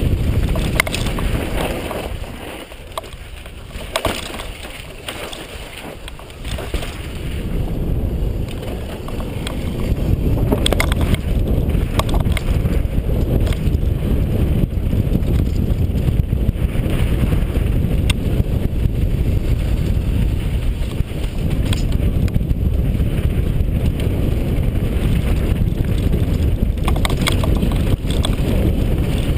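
Wind buffeting a helmet-mounted GoPro during a fast downhill mountain-bike run, mixed with tyres on loose dirt and rock and sharp clicks and rattles from a Rocky Mountain downhill bike's chain and frame. The noise dips for a few seconds near the start, then rises and stays loud from about ten seconds in.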